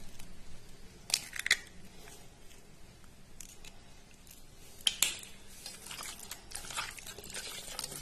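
An egg's shell cracking with sharp clicks about a second in and again near five seconds, then the soft crackle and squish of hands working the raw egg into marinated chicken pieces.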